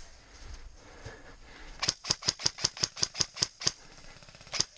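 Airsoft gun firing a quick string of about ten sharp shots at roughly five a second, then a single shot near the end.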